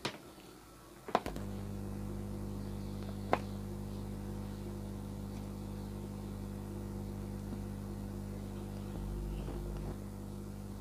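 A switch clicks about a second in and a steady mains hum starts as the Samsung CRT TV's power-supply board is powered up; another single click follows a couple of seconds later.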